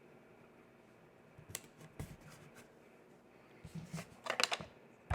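Light handling noises of cardstock pieces on a tabletop: a couple of single taps, then a quick run of clicks and paper rustles near the end.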